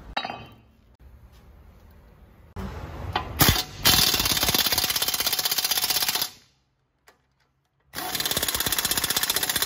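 Impact wrench hammering in two long bursts, the second about eight seconds in, while bolts on the Opel Insignia's front brake are undone.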